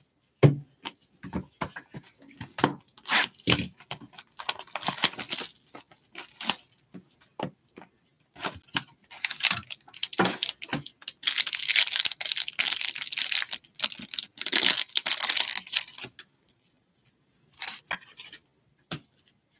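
Trading-card packaging handled by gloved hands: a run of light clicks and taps, then a plastic wrapper crinkling in two longer stretches past the middle, with a few more taps near the end.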